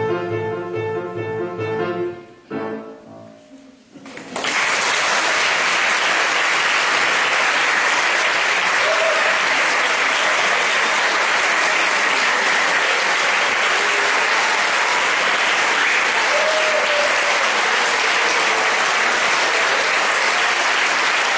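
Choir and band end a song on a held chord, cut off by a final hit about two and a half seconds in. After a brief hush the audience breaks into steady applause.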